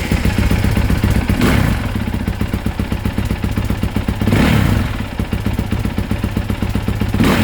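Honda CRF450R's single-cylinder four-stroke engine running just after a hard start, firing steadily with three short throttle blips, about a second and a half, four and a half and seven seconds in.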